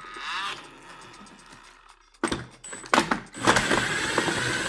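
Refrigerator ice dispenser auger turning: a few clicks and rattles about two seconds in, then a steady motor whir with a held tone through the last second and a half.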